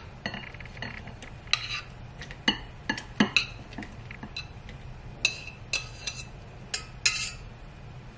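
Metal utensil clinking and scraping against a stainless steel pot and a ceramic bowl as ramen noodles are pushed from the pot into the bowl and stirred: scattered, irregular clinks, some ringing briefly.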